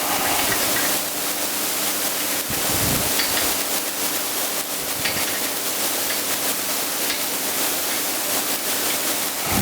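A steady, even rushing hiss with a faint low hum under it, like a running fan or air noise, with a few faint knocks about three and five seconds in.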